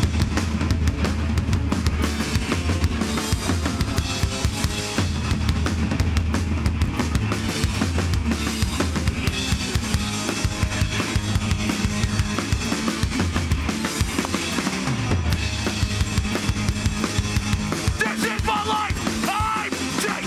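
Hardcore band playing live: drum kit hitting hard, with bass drum and snare, under distorted electric guitars and bass guitar.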